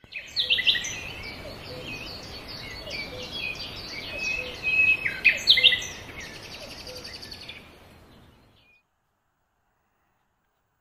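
Birdsong: quick chirps and trilled phrases, loudest around five seconds in, fading out after about eight seconds.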